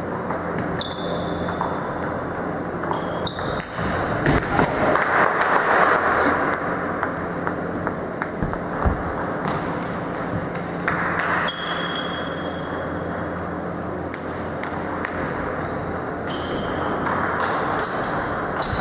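Table tennis rally: the plastic ball clicks off rackets and the table in quick irregular succession, with short high squeaks between the hits.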